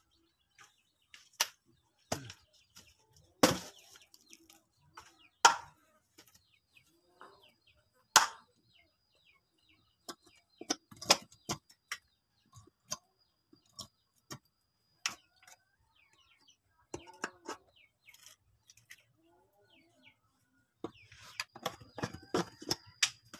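Sharp hammer knocks on a wooden plank, irregular and a second or more apart, coming faster in a cluster near the end. A thin steady high tone runs through the middle and returns near the end.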